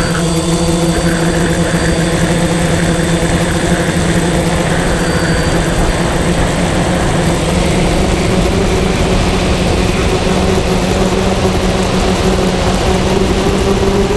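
Electric motors and propellers of a small remote-controlled camera aircraft, heard from its onboard camera: a steady hum over rushing wind noise, its pitch stepping slightly higher about ten seconds in.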